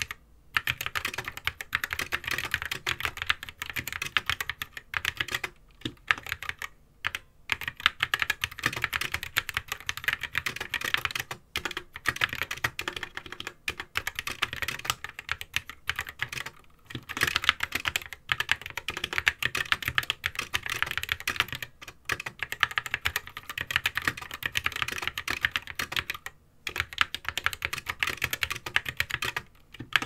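Continuous typing on an SK61 60% keyboard with Gateron optical red linear switches, set directly on a bare desk without a mat: a dense run of key clacks with a few brief pauses.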